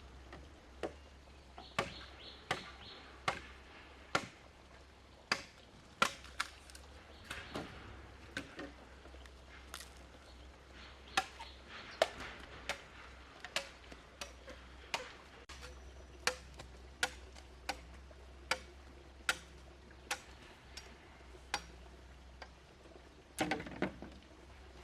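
A long series of sharp, separate knocks, about one a second at an uneven pace, with a louder cluster near the end: a hand tool striking wood, as in chopping or hammering.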